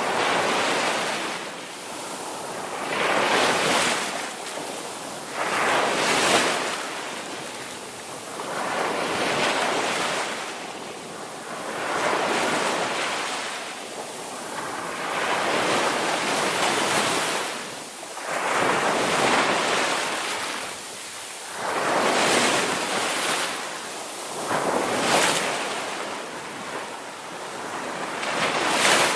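Ocean surf: waves breaking and washing in one after another, each a rushing swell every few seconds that fades before the next.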